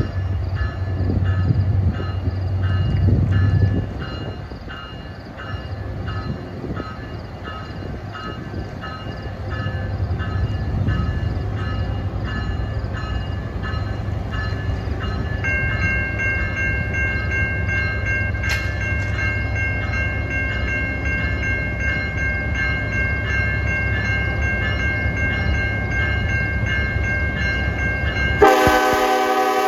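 An NJ Transit train pulls away with its locomotive running and a regular ringing through the first half. A steady high squeal joins about halfway. Near the end comes a short blast of the locomotive's five-chime K5LLA air horn.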